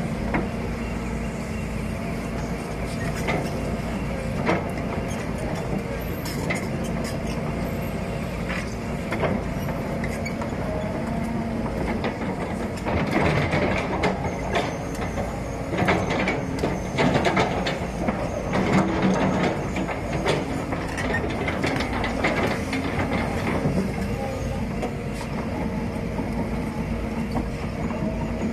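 Used Volvo excavator running: a steady diesel engine hum with scattered clanks and knocks from the working machine, busier and louder for a stretch in the middle.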